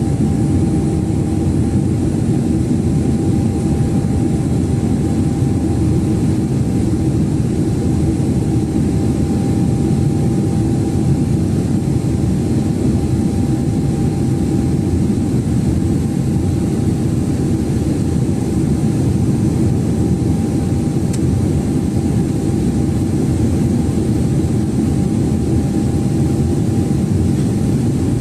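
Boeing 777 cabin noise heard from a window seat in flight: a steady, loud rumble of jet engines and airflow with a faint steady whine above it.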